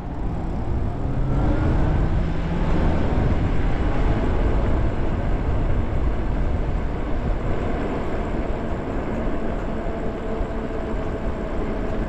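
Riding noise from a Lyric Graffiti e-bike: wind rushing over the microphone and road rumble, with a faint electric-motor whine that rises in pitch over the first few seconds as the bike speeds up, then holds steady.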